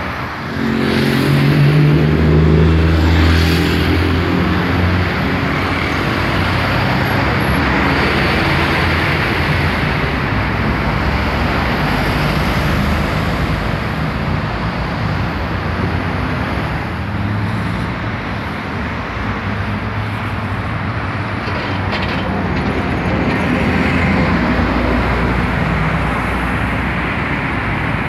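Steady roar of heavy road traffic passing: tyre and engine noise of cars and buses. A heavy vehicle's low engine drone stands out loudest from about one to five seconds in, and fainter engine tones come up again later.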